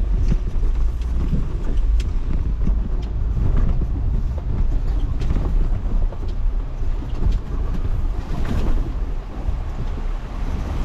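Off-road vehicle crawling over a rough, rocky trail: a steady low engine and drivetrain rumble with a few sharp knocks and crunches from rocks and the suspension.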